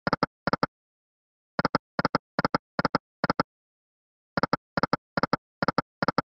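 Reel-stop sound effect of a five-reel video slot game: short, sharp double clicks, one for each reel as it lands, about two and a half a second. They come in runs of five with a pause of about a second between spins: the last two stops of one spin, then two full spins.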